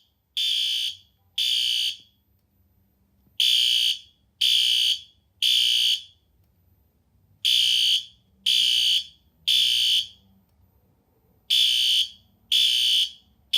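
System Sensor SpectrAlert Advance P2R horn strobe sounding its temporal-three evacuation pattern. It gives groups of three high-pitched electronic horn blasts, each about half a second long, with a pause of about a second and a half between groups.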